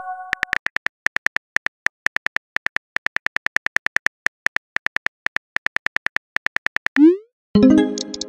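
Simulated phone-keyboard key clicks tapping at about six or seven a second as a text message is typed out. Near the end comes a short rising swoosh as the message is sent, then a ringing chime of a few notes.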